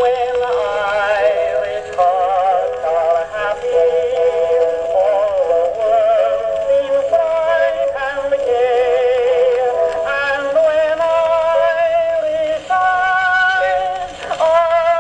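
Edison Blue Amberol cylinder record playing on an Amberola phonograph: a sung record whose melody wavers with vibrato over its accompaniment. The sound is thin and mid-range, with little bass or treble.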